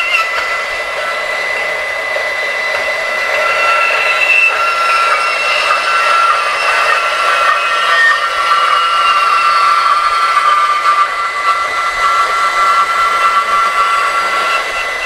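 Makita GBP01 40V brushless cordless band saw cutting through a 2x4 rectangular steel tube with a 1/8-inch wall, stood on end for a 4-inch-deep cut. The blade runs steadily through the metal with a high-pitched whine.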